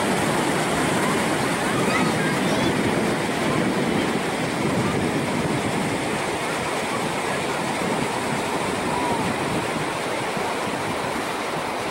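Steady wash of Pacific Ocean surf breaking on a beach.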